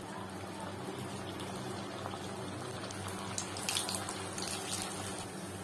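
Snack balls deep-frying in hot oil: a steady sizzle, with a spell of sharper crackles and spatters from about three and a half seconds in.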